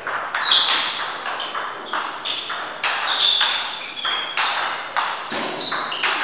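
Table tennis ball bouncing: a string of sharp, irregular clicking pings, about two or three a second, some with a short high ring.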